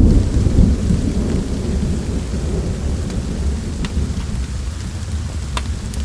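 Rolling thunder rumbling and slowly dying away under steady rain, with a few sharp crackles of a wood fire near the end.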